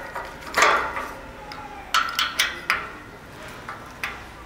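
Metal clanks and knocks from a painted steel gate grille and its slide-bolt latch being handled, with a short metallic ring. One loud clank comes about half a second in, a quick run of four knocks about two seconds in, and another near the end.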